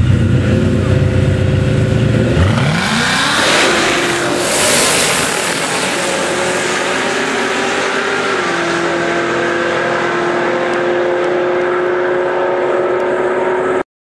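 Ford Mustang SVT Cobra's V8 running loud and low at the starting line, then launching about two seconds in with a fast rise in pitch and pulling away down the drag strip, thinning to a steadier, higher drone. The sound cuts off abruptly near the end.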